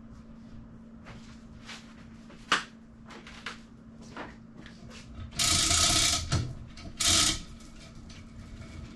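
Manual chain hoist being worked to lift a small sailboat: scattered clicks and a sharp knock, then two loud bursts of chain rattle a little past halfway, over a steady low hum.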